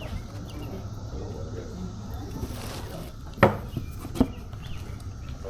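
Two sharp knocks, a loud one about three and a half seconds in and a softer one less than a second later, over a low steady background.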